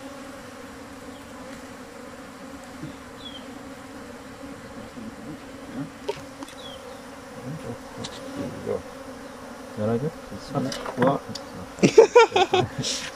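A dense mass of honey bees buzzing steadily as the cluster is shaken and brushed onto the frames of a hive box. From about ten seconds in, louder irregular rustling and clattering sounds from handling the branch and box rise over the hum.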